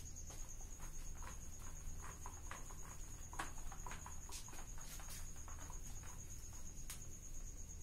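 Whiteboard duster rubbed across a whiteboard in short, irregular strokes, heard as scattered brief scrubbing sounds over a steady high-pitched whine and a low hum.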